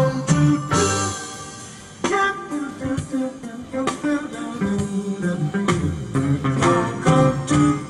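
Guitar-led music played back through an Acoustic Audio 151B all-weather bookshelf speaker with a 4-inch woofer, heard from the speaker in the room as a demonstration of its sound.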